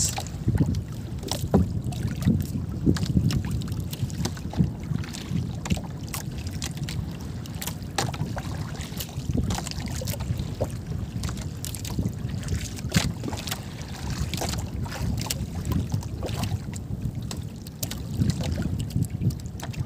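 Wind buffeting the microphone and water slapping against the hull of a small outrigger fishing boat, with scattered sharp knocks and clicks.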